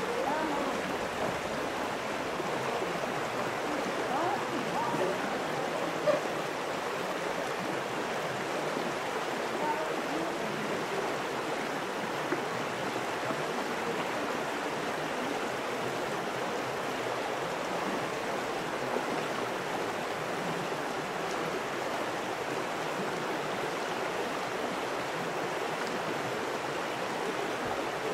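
Steady, even rushing of a stream, with a few brief knocks, the sharpest about six seconds in.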